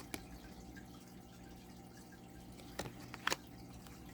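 A few soft clicks of thick oracle cards being handled and laid down, one near the start and a close pair near the end, over a faint steady room hum.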